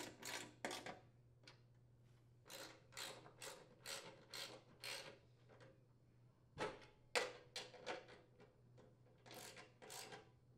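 Socket ratchet clicking in several runs of quick strokes with short pauses between, as bolts are driven into the snowblower's auger bearing holders.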